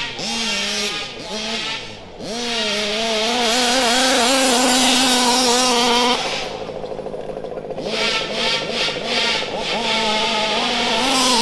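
Large-scale RC car's motor revving up and down under throttle, a pitched whine that wavers with speed. It holds loudest for a few seconds, drops away about six seconds in, then picks up again near the end.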